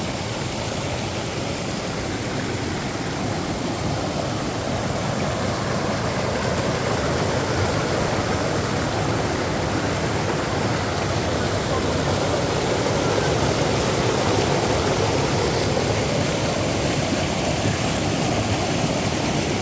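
Waterfall's steady rushing water, a dense even noise that grows slightly louder about a third of the way through.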